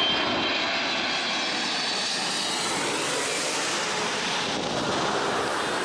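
Airbus A320's CFM56 jet engines and airflow heard from inside the cabin: a steady, even rushing roar that grows slightly brighter in tone over the few seconds.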